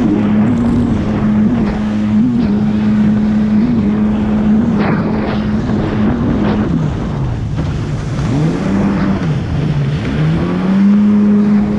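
Jet ski engine running at high, steady revs, with the rush of water and spray around the hull. In the second half the throttle is eased off twice, so the engine note drops and then climbs back, before it settles steady and high again near the end.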